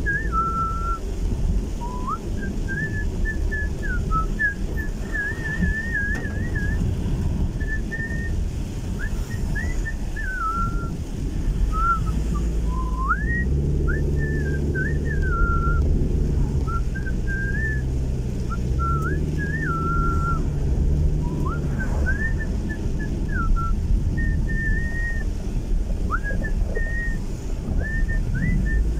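A person whistling a tune, one clear pitch sliding between notes in short phrases, inside a moving car. Underneath runs the steady low drone of the car's engine and road noise, which grows stronger with a steady engine tone for several seconds in the middle.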